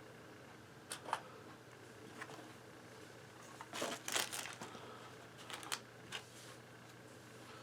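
Camera body, lens and caps being handled: scattered light plastic clicks and rustles, sharpest about a second in and in a cluster around four seconds in.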